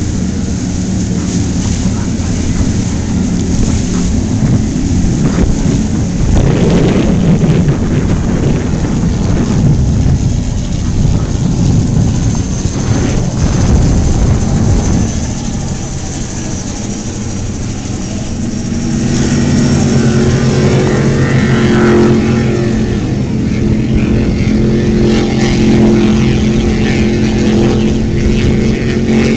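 Motorboat engines running over a dense low rumble of wind and water. About two-thirds of the way through, a steadier engine hum comes up and stays.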